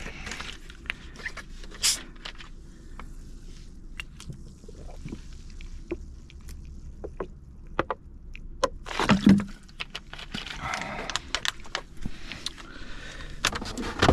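Clicks, knocks and scraping of things being handled, with a louder bump about nine seconds in and stretches of rustling or scraping after it.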